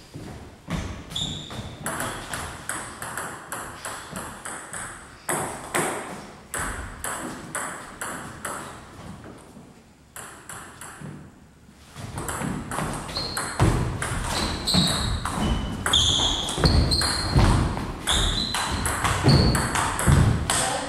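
Table tennis ball clicking off bats and table, a steady run of hits in the first half. After a short pause there is a faster rally, with sneakers squeaking on the wooden floor and feet thudding.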